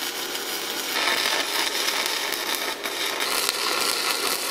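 Stick-welding arc from a Forney Easy Weld 100ST welder set to full amperage, crackling and hissing steadily as the rod burns, growing louder about a second in.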